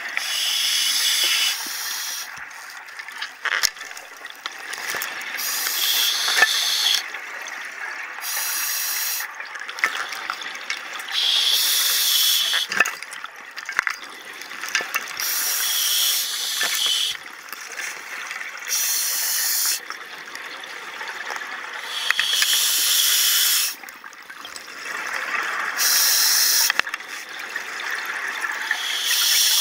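Scuba diver breathing through a regulator underwater: a hissing rush of air about every three seconds, with bubbling and faint crackles between the breaths.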